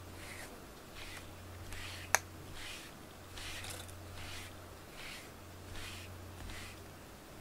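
A pink bristled grooming brush stroking through a cat's short black fur: a soft swish repeated roughly once every three-quarters of a second. A single sharp click about two seconds in.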